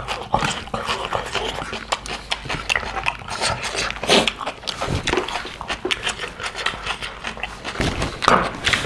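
Close-miked chewing and lip-smacking of people eating pig's feet curry and rice by hand: a dense, irregular run of wet clicks and smacks, a few louder ones about four seconds in and near the end.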